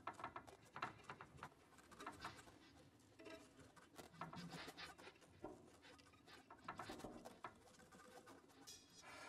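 Faint, irregular clicking and scratching, several small crackles a second, with a faint pitched tone showing through now and then.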